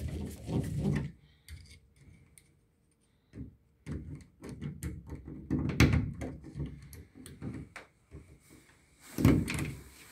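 Hand screwdriver driving the mounting screws of a duplex receptacle into a plastic electrical box: scattered clicks and scrapes of screw, metal strap and box, with a louder knock just after nine seconds.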